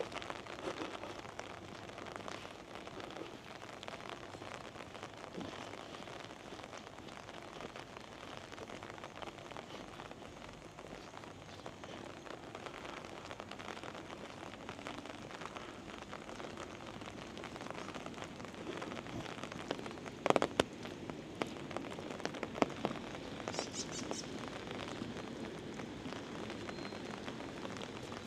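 Steady monsoon rain falling, a dense pattering crackle, with a few sharp louder knocks about two thirds of the way through.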